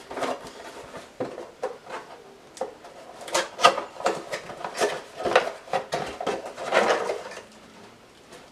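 Unpacking and handling noise from a large boxed party speaker: irregular knocks, bumps and brief rustling scuffs as packaging and the speaker are moved about.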